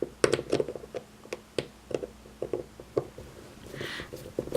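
Irregular light clicks and taps of lock parts and small hand tools being handled, several a second.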